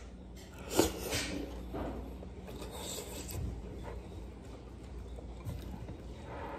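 Close-up eating noises from someone working through a donburi with chopsticks: irregular chewing and mouth sounds with rasping, scraping textures. The loudest is a short, sharp sound about a second in.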